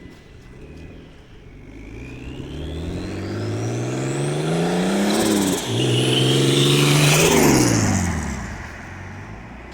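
Turbocharged BMW E46 330i's M54B30 straight-six accelerating hard, the engine note climbing with a rising turbo whistle above it. The revs dip briefly at a gear change about five and a half seconds in, climb again, then fall away as the throttle is lifted near the end.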